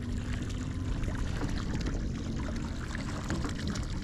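Water sloshing and lapping against the hull of a drifting fishing boat, with small splashes and a faint steady hum underneath. Wind rumbles on the microphone.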